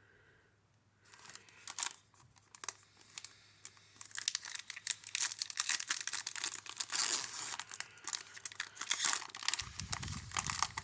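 Wrapper of a Panini Contenders football card pack being torn open and crinkled by hand. It starts about a second in as scattered crackles and gets denser and louder after about four seconds.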